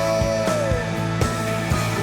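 Background rock music with a steady beat and guitar, a held melody note gliding down about half a second in.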